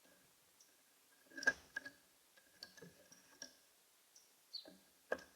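Irregular sharp clicks and taps of a common grackle's bill pecking at seed on a bird feeder, the loudest about a second and a half in, with a few short high notes in between.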